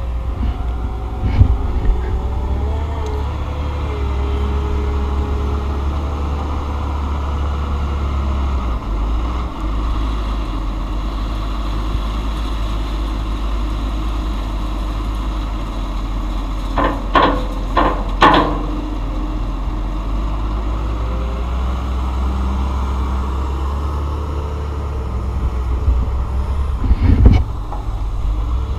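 A truck running on the road, a steady low engine rumble whose pitch glides as it changes speed in the first few seconds. A quick run of four knocks or rattles comes a little past the middle, and another near the end.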